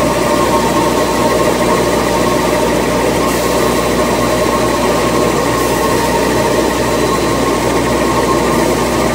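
Toilet paper maxi roll production machinery running: a loud, steady machine din with a constant hum and a few held tones.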